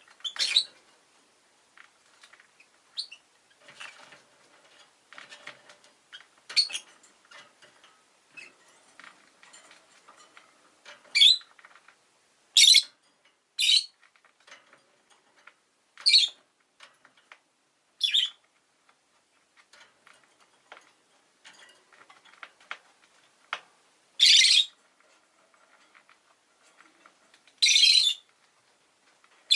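Rosy-faced lovebird giving short, shrill chirps, about ten sharp calls at irregular intervals, with faint soft clicks and rustling between them.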